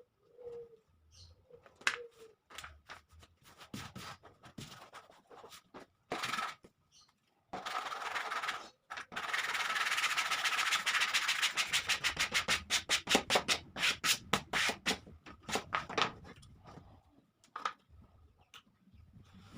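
Scattered light clicks and knocks, then a stretch of continuous scratchy rubbing. This breaks into a run of quick back-and-forth rubbing strokes, several a second, that thin out and stop near the end, like hand work on a plywood workpiece.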